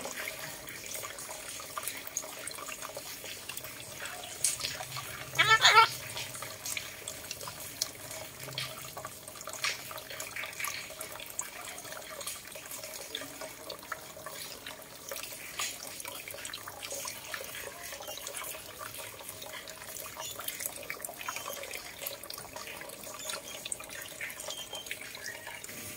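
Steady running-water noise with scattered small clicks. About five and a half seconds in comes one short, warbling call from a red-breasted parakeet.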